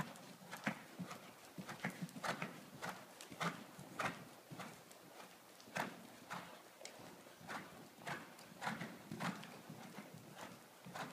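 Hoofbeats of a pony being ridden on the sand footing of an indoor arena, an uneven beat of roughly two strokes a second.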